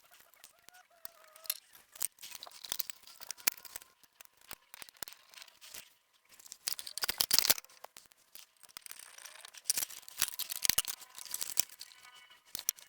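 Irregular clicks, scrapes and rattles of plastic and metal parts being handled and fitted together as a disc player is reassembled, with a louder scratchy burst about seven seconds in.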